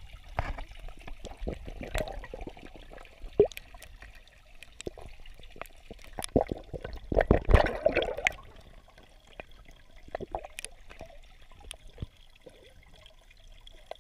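Koi feeding at the water surface on floating pellets: scattered clicks and pops of water, with a busier stretch of splashing about seven to eight seconds in, picked up by a camera held underwater.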